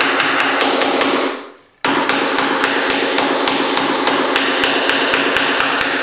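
Hammer tapping rapidly on a Ryobi door latch installation kit tool, driving its cutter into the edge of a wooden door to cut out the latch-plate reveal. Several even taps a second, with a short pause about a second and a half in before the tapping resumes.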